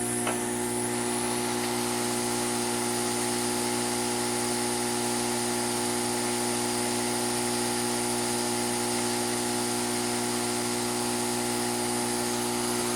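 Hot-air heat tool blowing steadily: an even motor whine over a hiss of air. It is heating the Kapton tape and dome switch behind a home button to loosen them for removal.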